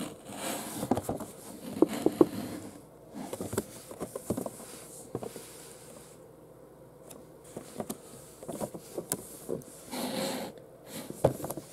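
A cardboard toy box with a clear plastic window being handled and turned over in the hands: scattered light taps and clicks with soft rubbing and rustling, briefly quieter in the middle.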